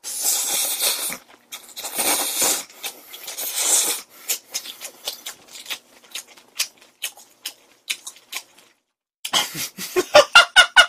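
Ramen noodles slurped up in three long pulls, then wet chewing and lip smacks. Near the end comes a burst of rapid laughter.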